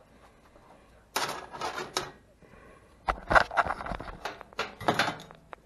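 Sheet-metal bracket being worked loose and pulled out of a furnace blower cabinet by hand. A scraping rattle comes about a second in, then a run of metal knocks and clatter with a few dull thuds.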